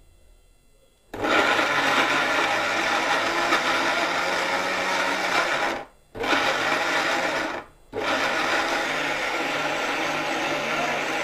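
Orpat 1200-watt mixer grinder running at full speed in its stainless steel jar, grinding ginger with a little water into paste. It starts about a second in, is switched off and straight back on twice around the middle, then runs on steadily.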